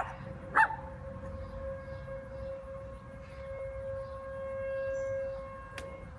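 ASC T-128 outdoor warning siren sounding a steady tone that swells and fades as its rotating horn sweeps past, loudest about two-thirds of the way through. Two sharp clicks near the start are louder than the siren.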